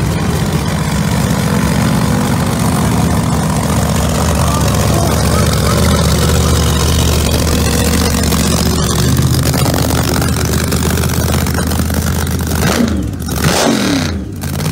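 The fuel-injected V8 of a Chevelle SS drag car running loud and steady at a lumpy idle close by. Its note shifts briefly near the end.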